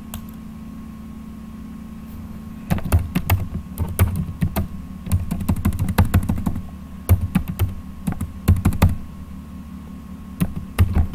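Typing on a computer keyboard: irregular runs of keystroke clicks from about three seconds in to about nine seconds, then a few more near the end, over a steady low electrical hum.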